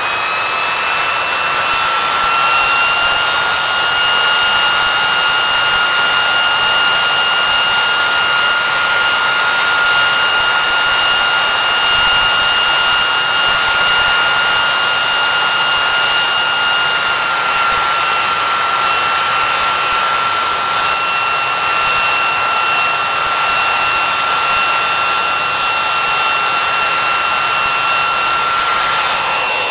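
Rolls-Royce Spey turbofan engines of a Hawker Siddeley Nimrod running on the ground during a high-power run. A loud jet roar carries a shrill whine that climbs in pitch over the first few seconds as the engines spool up, then holds steady and dips slightly about halfway through.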